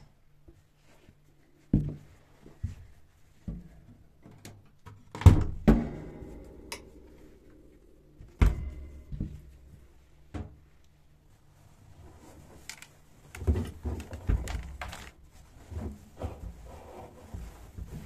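Knocks and thuds as a front-loading washing machine's door is opened and a plastic laundry basket is set against it, the loudest about five seconds in and again about eight seconds in. From about thirteen seconds on, more knocks and a soft rustling as wet curtains are pulled out of the drum.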